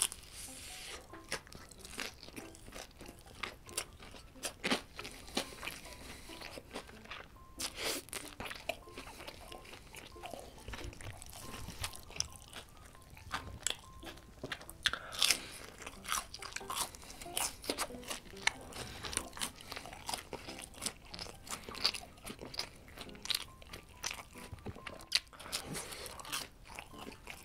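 Close-miked crunchy bites and chewing of fried, breaded chicken nuggets, with many sharp crunches of the crust throughout.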